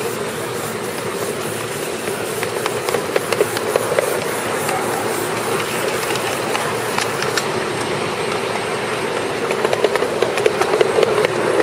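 7¼-inch gauge miniature steam train on the move: the wheels run with a steady rumble over the track, with irregular sharp clicks from the rails that grow busier in the second half.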